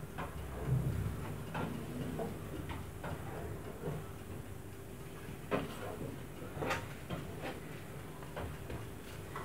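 Sheets of phyllo pastry and their plastic wrapping being handled: light rustling and crinkling with a few soft clicks and taps, the sharpest ones a little past halfway. A faint steady hum lies underneath.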